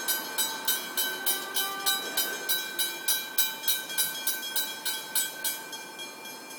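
Level crossing warning bell ringing in quick, even strokes, about three a second, while the boom gates are down for an approaching train. The strokes grow softer about five and a half seconds in.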